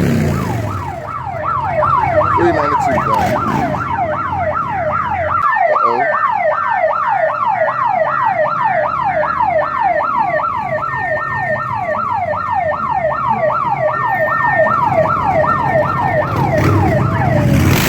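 Electronic siren in a rapid yelp: a rising wail repeated about two and a half times a second, with a car engine revving near the end.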